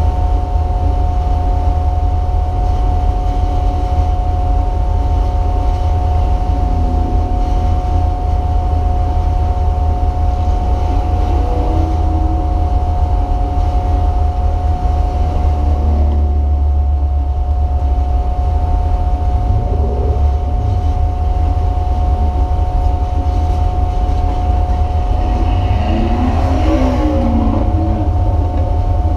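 Race car running at speed on track, heard from inside the car: a dense, steady low engine and road drone with a constant whine above it.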